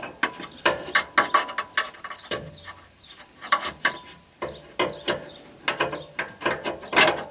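Hand ratchet wrench clicking in short, irregular runs of back-swings while a bolt is worked in.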